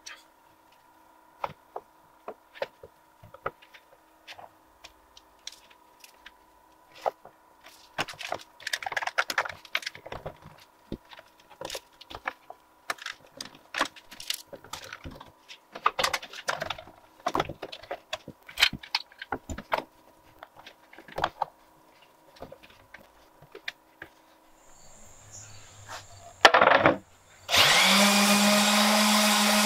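Irregular wooden clacks and knocks as glued end-grain cutting-board strips are set against each other and clamped in pipe clamps. Near the end there is a short loud burst, then an electric random orbit sander running steadily with a low hum on the board's end-grain face.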